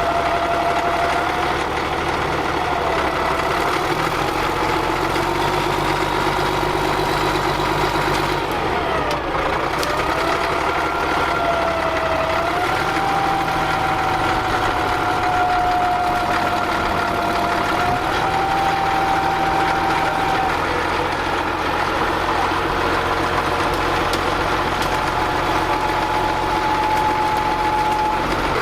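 Caterpillar D6D crawler dozer's 3306 six-cylinder diesel running, with a steady whine whose pitch shifts up and down several times as the engine speed changes.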